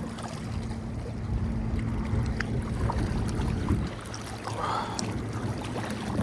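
Steady low engine hum with a faint rumble, the hum's steady tone dropping out a little over halfway through; a few faint ticks over it.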